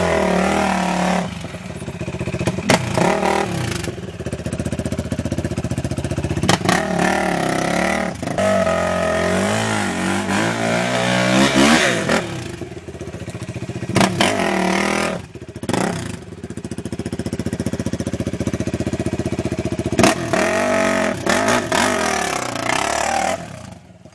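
Suzuki LTR450 quad's single-cylinder four-stroke engine revving hard and easing off again and again as it climbs a steep rutted dirt trail, with knocks and clatter from the machine over the ruts.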